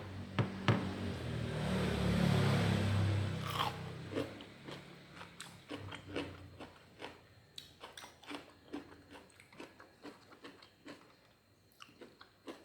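A person chewing and biting crunchy food close to the microphone, with many sharp crunching clicks. It is loudest in the first few seconds and the chewing grows softer toward the end.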